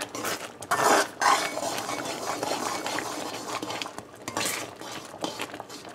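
Metal spoon stirring and scraping through thickening, boiling coconut fudge mixture in a metal pot, with irregular scrapes and clinks against the pot, loudest about a second in and again after four seconds.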